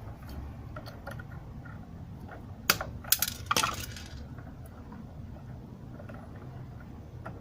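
A few sharp clicks and a brief clinking rattle about three seconds in, from small parts and tools being handled while wiring, over a low steady hum.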